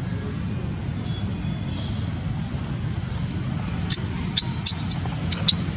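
Steady low hum of a running engine, with a quick run of sharp clicks starting about four seconds in.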